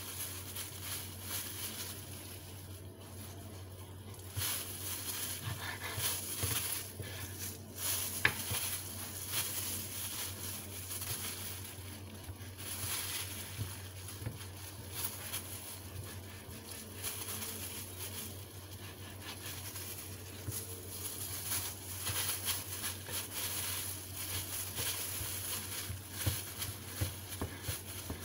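Kitchen knife slicing raw pork on a wooden cutting board: irregular taps and scrapes of the blade against the board, with the crinkle of plastic food-prep gloves. A low steady hum runs underneath.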